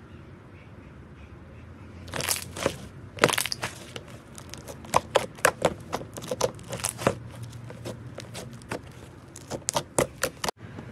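Fingers poking and squeezing thick slime, trapped air popping and clicking in quick, irregular snaps. The clicks start about two seconds in and stop abruptly near the end.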